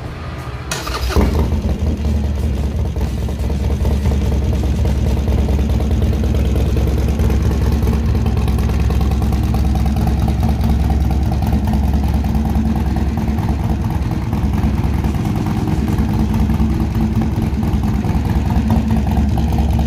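Harley-Davidson Sportster Roadster XL1200CX's air-cooled 1200 cc V-twin, fitted with a Stage 1 cam, Heavy Breather intake and JJ Cycles exhaust, starting about a second in and then idling steadily and loudly.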